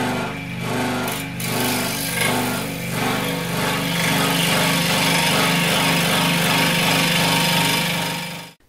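Electric scroll saw running, its reciprocating blade cutting a thin oak strip at a slight bevel into a wedge. The steady machine sound grows a little louder about a third of the way in and cuts off suddenly near the end.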